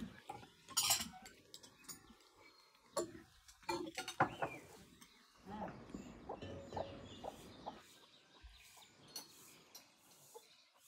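Chickens clucking and calling, with a few sharp clinks of cutlery and dishes at a table.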